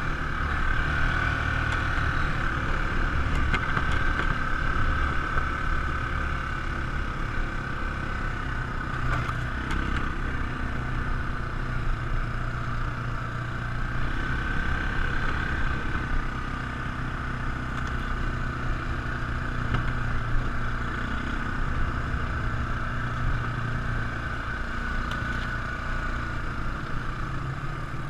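ATV engine running steadily under way, a low rumble with a steady high whine above it and a few light knocks about a third of the way in.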